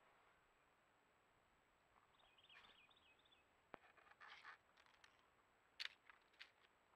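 Near silence outdoors. A faint warbling chirp comes about two seconds in, and a few soft clicks and rustles follow.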